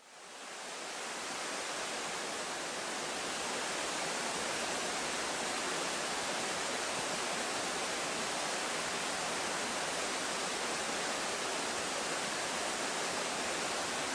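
Steady rush of a mountain stream running through a rocky gorge: an even hiss with no tones or breaks, fading in over the first second.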